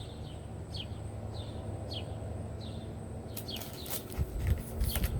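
A bird chirping repeatedly, short falling chirps about two a second, over a low steady hum. From a little past halfway, rustling and light knocks come in, as of comic books being handled.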